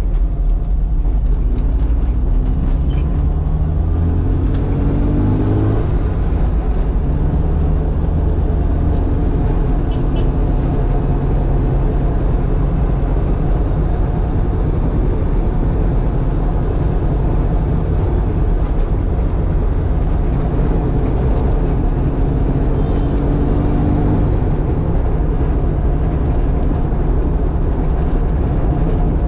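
1972 Mini van's 1.0-litre A-series four-cylinder engine, heard from inside the cabin, pulling away and accelerating through the gears. The engine note climbs, drops at a gear change about six seconds in, climbs again, then settles to a steadier cruise with one more climb later on.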